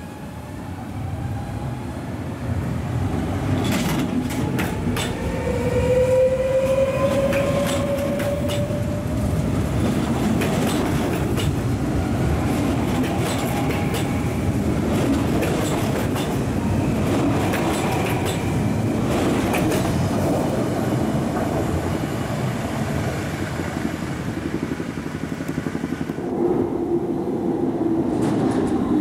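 NS VIRM double-deck electric intercity train running along the platform, growing louder as it comes close, with a rising electric whine and many sharp clicks from the wheels on the track. Near the end the sound changes to a Sprinter Lighttrain (SLT) electric train with a steadier hum.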